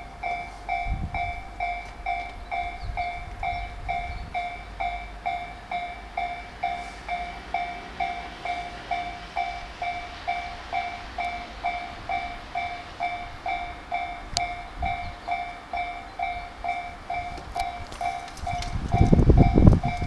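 Japanese railway level-crossing warning bell clanging electronically at about two beats a second while the barriers are down for an approaching train. A loud low rumble begins near the end.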